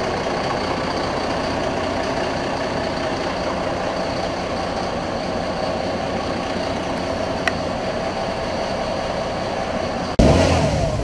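Fire truck's diesel engine idling steadily, with a single sharp click about seven and a half seconds in. Near the end the sound switches abruptly to a louder, lower engine sound.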